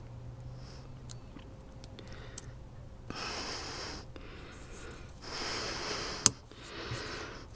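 Masking tape being pulled off the roll and laid on fibreglass in three short rasping rips, the first about three seconds in, with a sharp click just after the second.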